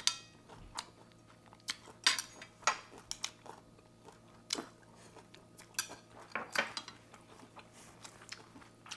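Eating with chopsticks at a table: scattered light clicks of chopsticks against plates and bowls, mixed with chewing and mouth sounds.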